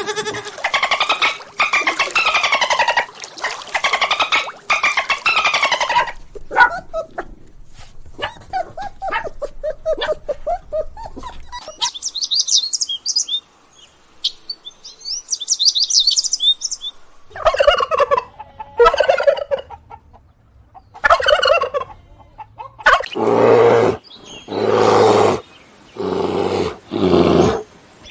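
A run of farm animal calls, one clip after another: pitched, repeated calls at first, high rapid chirping in the middle, and a series of short loud calls near the end, most like farmyard fowl.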